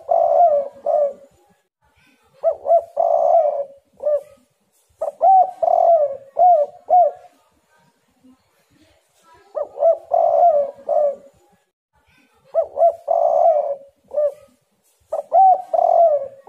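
Spotted dove cooing: six short phrases of several notes, each note swelling and falling. The phrases come in two runs of three, with a pause of about two seconds between the runs.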